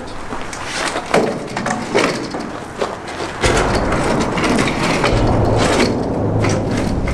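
A folding camp cot being opened and set down on loose rocks: a few knocks and clacks of its frame, then about three and a half seconds in a loud, steady low rumble of traffic crossing the bridge overhead.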